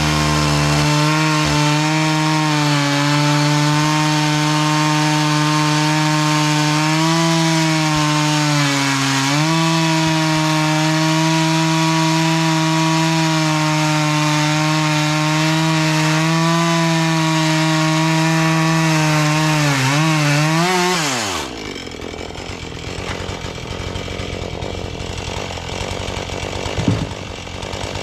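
Husqvarna 435 two-stroke chainsaw held at full throttle cutting through wood, its high engine note steady with a brief dip about a third of the way in as it loads up in the cut. About three quarters of the way through, the throttle is let off and the revs fall away quickly, followed by a single knock near the end.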